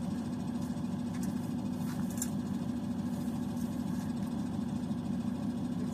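Crane truck's engine idling steadily, kept running to power the hydraulic crane, with a few faint clicks over it in the first couple of seconds.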